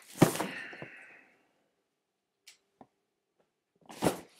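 Cardboard shipping case being handled: a sharp knock with a rustle that fades over about a second, two faint clicks, then another knock and rustle near the end.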